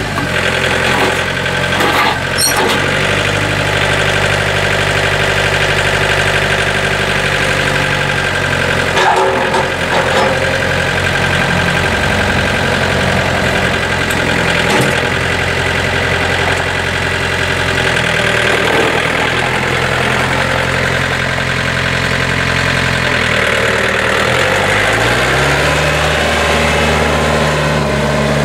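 John Deere 4005 compact tractor's four-cylinder Yanmar diesel engine running steadily as the tractor drives on gravel. The engine note steps up a couple of seconds in and rises again near the end, with a few short rattles about two and nine seconds in.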